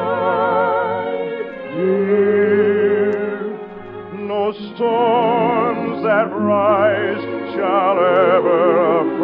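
Operatic singing with strong vibrato over orchestral accompaniment, from an operetta number: it thins out about three to four seconds in, then swells again with fuller voices.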